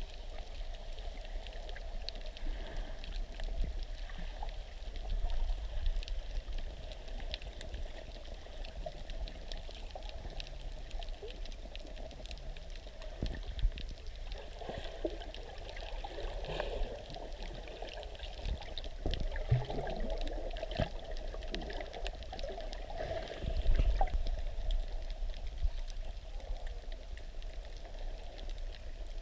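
Muffled water noise recorded underwater by a snorkeler's camera: a steady wash with scattered small clicks and bubbling over a low rumble, with one louder surge near the end.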